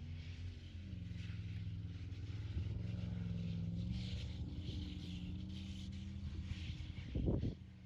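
Car engine revving up and dropping back, then running steadily, with a brief loud thump a little before the end.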